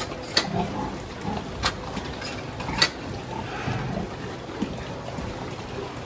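Pigs in a pen with steel crate bars: a few sharp metallic clicks and knocks from the bars, with low grunting between them.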